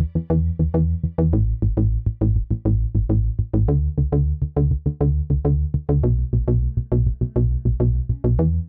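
Electronic dance music with a fast, steady drum-machine beat over a synthesizer bass line that changes note every second or two.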